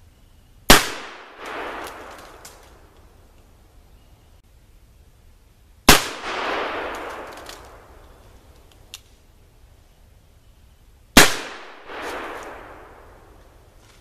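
Three shots from a .44 black-powder cap-and-ball revolver, a Pietta replica of the Colt 1851 Navy, about five seconds apart. Each shot is followed by an echo rolling on for about two seconds.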